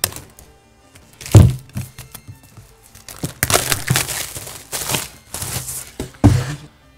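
Clear plastic shrink-wrap crinkling as it is peeled and pulled off a laptop box for a few seconds, with a thump about a second in and another near the end.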